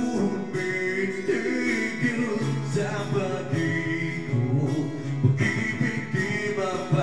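A man singing through a corded microphone and amplifier over instrumental backing music.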